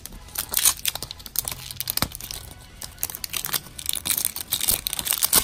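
Clear plastic wrapping crinkling and tearing as it is peeled off a hard plastic capsule ball, in irregular rustling bursts, loudest about half a second in and again near the end.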